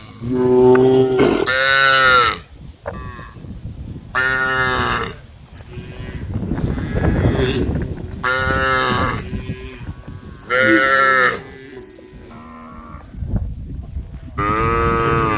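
Cattle mooing, about six calls of roughly a second each from several cows at different pitches, some calls falling in pitch at the end.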